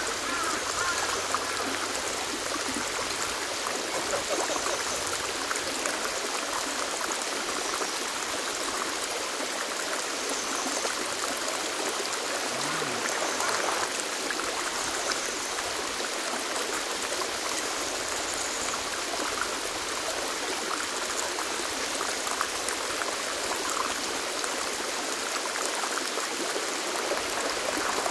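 Mountain valley stream flowing close by: a steady, even rush of water over the stream bed.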